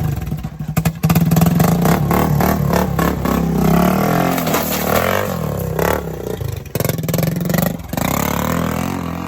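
A motor running loudly with rapid clattering and scraping, its pitch wavering up and down.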